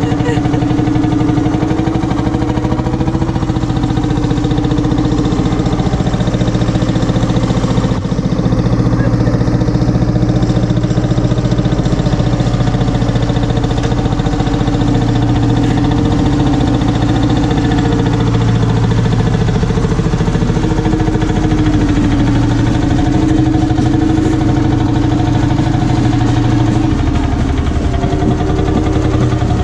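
Old Lanz tractor engine running steadily with a rapid, even pulse. Its speed shifts slightly a few times as the tractor is driven slowly.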